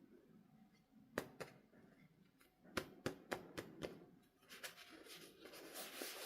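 Hands handling a toy doll and its plastic packaging: a few light clicks and taps, then rustling that builds near the end.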